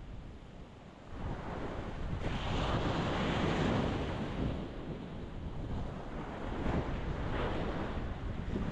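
Ocean waves breaking and washing on the shore in a steady rushing hiss. A wave swells about a second in, and another surges near the end.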